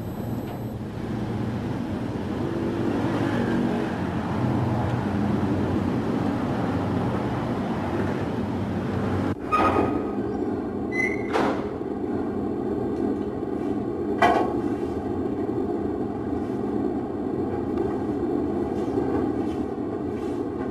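Steady low rumbling background noise that changes abruptly about nine seconds in, then carries on with a faint steady hum and a few sharp clicks.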